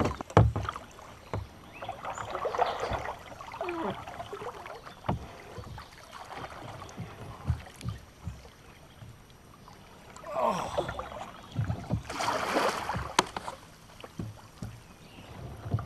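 Kayak being paddled: paddle blades swishing and splashing through the water in uneven strokes, with scattered knocks against the kayak's hull. The loudest is a sharp knock about half a second in.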